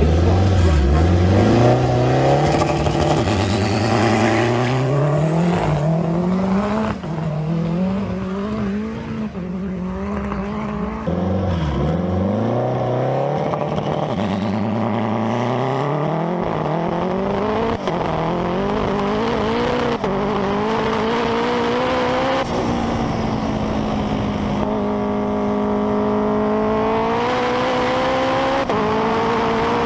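Turbocharged K24 four-cylinder engine of a Honda Civic Type R FN2 hillclimb car accelerating hard from the start, the revs climbing and dropping back at each sequential-gearbox upshift. After about 11 s it is heard from the car's own onboard camera as it runs up the hill, the revs rising and falling through the gears.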